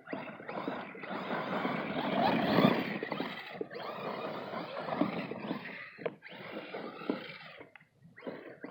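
Arrma Kraton 6S brushless RC monster truck being driven in bursts across grass and dirt: motor and tyres churning, starting and stopping several times, loudest about two to three seconds in.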